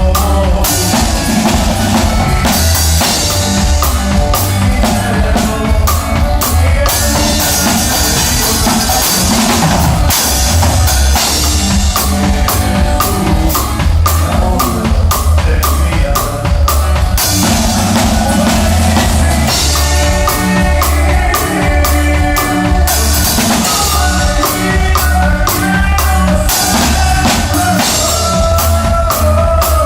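Live conjunto band playing, with a drum kit keeping a steady beat under bass and sustained melodic instruments.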